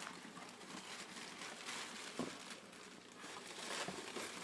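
Faint rustling and crinkling of paper as a gift is rummaged through and unwrapped, with a few small clicks.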